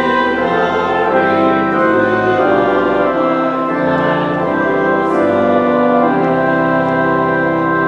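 Church organ playing slow, sustained chords that change every second or two.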